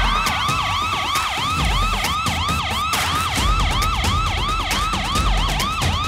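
Fire engine siren in a fast yelp, its pitch sweeping up and down about four times a second.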